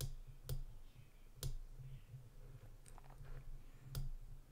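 A few sharp clicks at irregular intervals, the strongest about a second and a half in and near the end, over a faint low hum.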